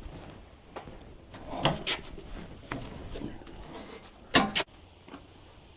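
A few separate knocks and clunks of wood and steel as the log is handled and repositioned on the sawmill bed. The loudest comes about four and a half seconds in.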